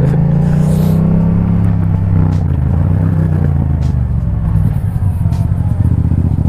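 Yamaha MT-07's 689 cc parallel-twin engine through a full Akrapovic exhaust system, its pitch dropping about two seconds in as the revs come down, then running steadily at low revs.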